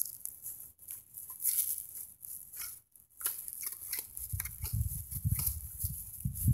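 Plastic bag wrapped over a Bounty Hunter Land Ranger Pro metal detector's search coil, rustling and scraping as the coil is swept over grass and loose soil. From about four seconds in, low rumbling thumps come in as a gloved hand works the dirt in the hole.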